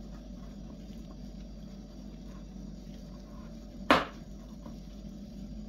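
A single sharp knock about four seconds in, over a steady low hum.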